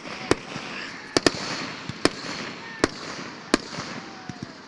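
Fireworks going off: six sharp bangs at uneven intervals, two of them close together about a second in, over a steady noisy background.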